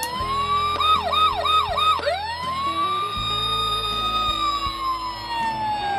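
Buddy L Rescue Force toy fire engine playing its electronic siren: a sharp rising wail, four quick yelps about a second in, then another rise that holds steady and slowly falls in pitch over the last two seconds.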